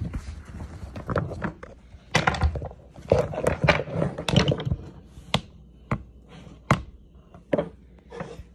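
Handling noise from the recording phone being moved about: rubbing and scraping, then about four sharp taps less than a second apart in the second half.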